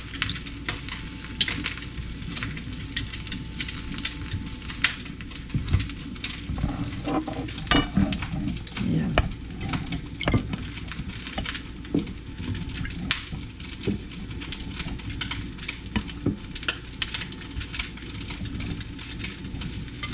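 Chicken drumsticks lifted by hand out of a bowl of liquid marinade and laid on a plate: irregular wet splats, drips and small taps.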